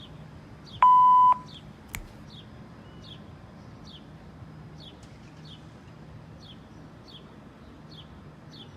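A single electronic beep, a steady tone held for about half a second, about a second in: the beep of a voicemail or answering machine. A sharp click follows, then a bird repeats short, high, falling chirps, about one or two a second.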